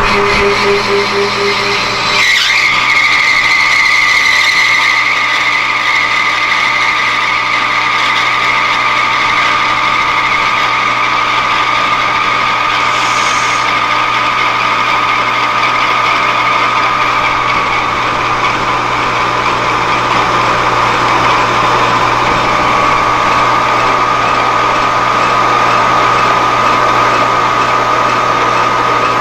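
Metal lathe running steadily with its spindle turning a small brass workpiece, giving a steady whine of motor and gearing. A brief knock about two seconds in.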